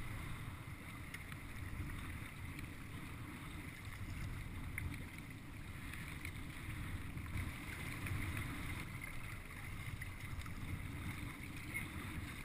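Wind buffeting the microphone as a steady low rumble, over a fainter hiss of water washing around a sea kayak.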